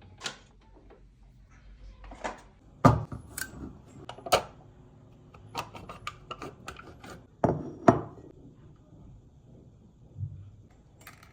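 Kitchen utensils and dishes being handled: a scattered series of sharp clicks and knocks, the loudest about three seconds in and a pair near eight seconds.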